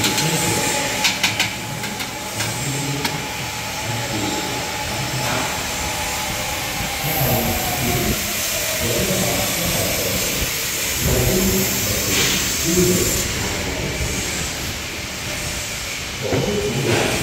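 Steady hissing workshop noise around a handheld fiber laser welder, with a few sharp clicks near the start and a faint machine tone that slides down in pitch about halfway through.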